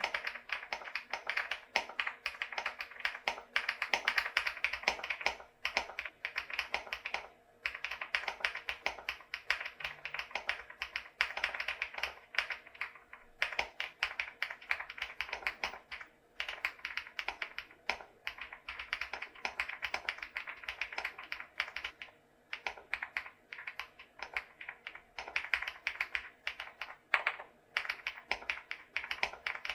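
Typing on a stock VTER Galaxy80 mechanical keyboard fitted with HMX Film KD200 linear switches and thick PBT cherry-profile keycaps: a fast, steady run of key clacks broken by a few short pauses.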